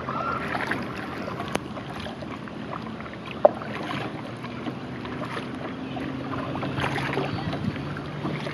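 Kayak paddle strokes: the blades dipping and splashing into calm river water, with water dripping off the paddle between strokes. A single sharp knock about three and a half seconds in, and a faint low hum from about halfway through.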